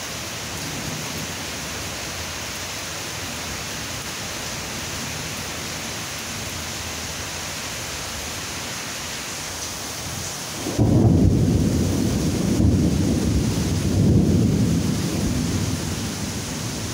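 Steady hiss of rain, then about eleven seconds in thunder breaks in suddenly and rumbles deep and loud, swelling again twice before easing off toward the end.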